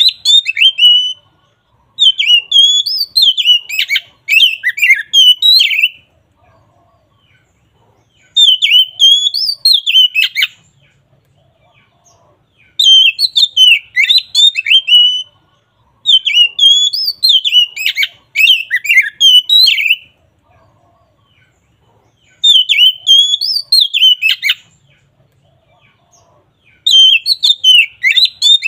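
Oriental magpie-robin (kacer) singing its loud, clear 'ngeplong' song. It sings phrases of quick, varied whistled notes, each about two seconds long, repeated over and over with short pauses between them.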